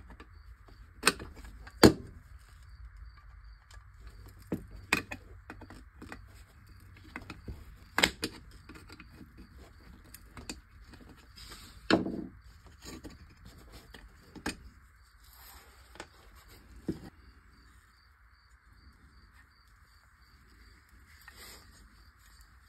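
Small clicks and sharp knocks of a die-cast metal toy tractor body and a small screwdriver being handled, tapped and set down on a workbench, scattered irregularly, the loudest about two seconds in and again near twelve seconds; the knocks die away after about seventeen seconds.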